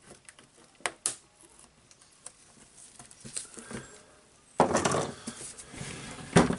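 Light metal clicks of a screwdriver and pliers on the demolition hammer's steel tool holder. About two-thirds in comes a louder stretch of clattering and scraping as the heavy hammer body is shifted on the wooden workbench, ending in a sharp knock.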